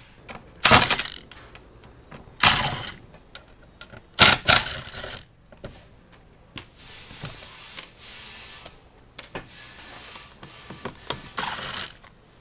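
Three short bursts of a cordless drill backing screws out of a running board's end caps in the first few seconds, followed by quieter handling noise.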